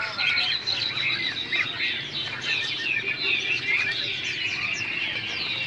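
Many caged songbirds chirping and trilling at once, a dense, overlapping chorus of short high calls that never pauses.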